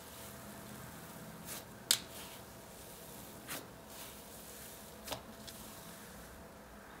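Cloud slime made with instant snow being squished, poked and stretched by hand, giving a few short crackles and pops, the sharpest about two seconds in, over a faint steady hum.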